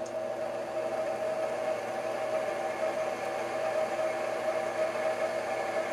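Dyna Myte 2800 milling machine spindle, belt-driven by a 1 kW DMM AC servo motor, running at a commanded 2000 RPM: a constant mechanical hum with one clear held tone over it.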